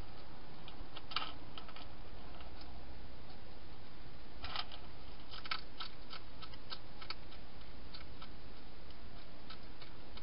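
European hedgehog crunching dry food inside a plastic feeding box: irregular sharp clicks, bunched about a second in and again from about four and a half to six seconds, with a few more later, over a steady low hiss.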